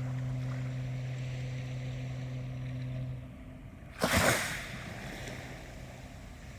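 Ocean waves washing, under a steady low drone that stops about three seconds in. About four seconds in comes a sudden, loud, brief burst of rushing noise, after which the waves carry on more quietly.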